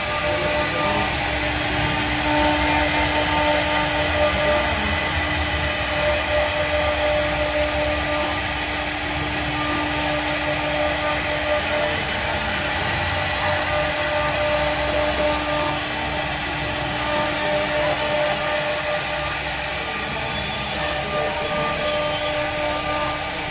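CNC router running steadily: a constant spindle whine made of several held tones over an even mechanical noise.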